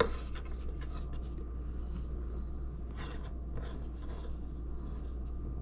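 Kitchen knife scraping across a cutting board as food is cut: a few short, scratchy strokes over a steady low hum.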